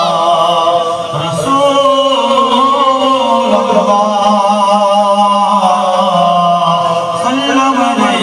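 A man's voice chanting a devotional Islamic recitation (naat) into a microphone, amplified through a PA loudspeaker. He holds long, drawn-out notes, with one phrase sinking slowly in pitch over several seconds before a new phrase begins near the end.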